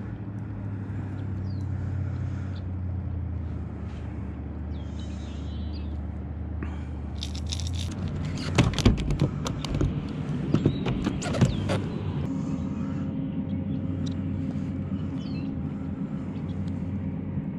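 A steady low droning hum like a motor running, which shifts to a different, somewhat higher drone about eight seconds in. A cluster of sharp clicks and knocks comes between about seven and twelve seconds in.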